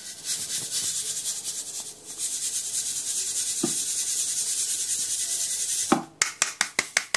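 Dehusked foxtail millet grains rubbing in a stainless-steel sieve shaken by hand, a steady hiss as the loose husk powder sifts through. Near the end the sieve is shaken in a quick run of sharper strokes, about seven a second.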